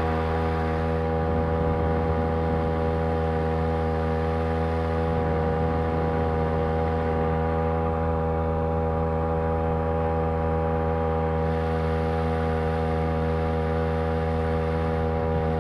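Two-stroke Champion T516 trimmer engine, mounted as a homemade outboard motor, running at a steady speed with an even, unchanging pitch.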